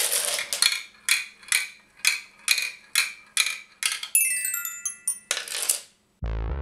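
A ball dropping down a plastic zigzag marble tower, clicking at each turn about twice a second, then running across a toy xylophone's bars in a quick ringing run of notes. A short rattle of dominoes toppling follows.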